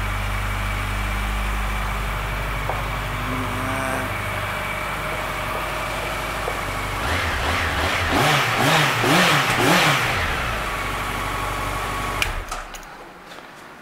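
2014 Honda CB1100's air-cooled inline-four idling steadily, then revved in about four quick throttle blips that rise and fall, settling back to idle. The engine is switched off about a second before the end and cuts out suddenly.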